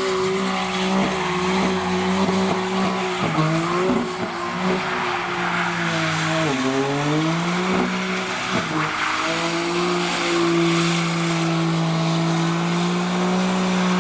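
A drifting car's engine revving hard with its pitch held steady, dipping briefly and climbing again about three times, over the screech of sliding tyres.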